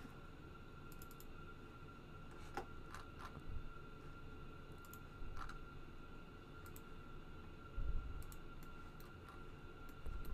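Faint, scattered computer mouse clicks and key taps, a dozen or so at irregular intervals, with a few low bumps, the strongest about eight seconds in. A faint steady high whine sits underneath.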